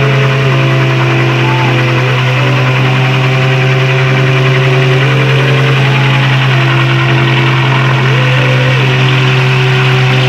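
Rear-wheel-drive Mitsubishi Galant's naturally aspirated engine held at steady high revs while the rear tyres spin in a burnout, with a dense hiss of tyre noise over it.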